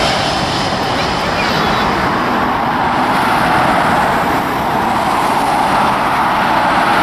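Steady road traffic noise of cars passing close by, mixed with the engine noise of a jet airliner on its landing approach.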